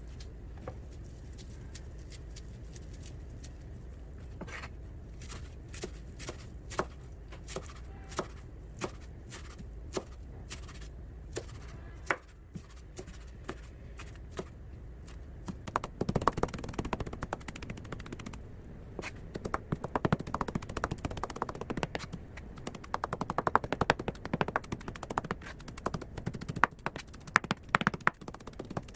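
A series of sharp clicks or taps, scattered at first, then coming thick and fast from about halfway through.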